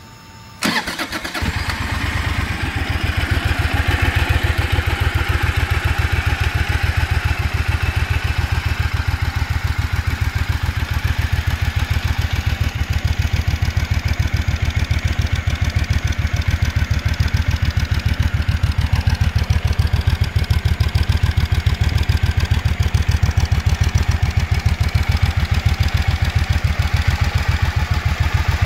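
2015 Triumph Thunderbird Commander's 1700cc parallel-twin engine, breathing through its stock exhaust, is started with a brief crank about half a second in. It catches at once and settles into a steady idle with even exhaust pulses.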